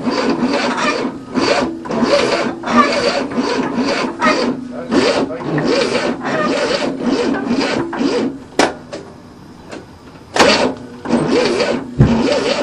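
The 1967 Cadillac's V8 being cranked over by its starter in uneven bursts without staying running, with a pause shortly before the end; the engine is taken to be flooded.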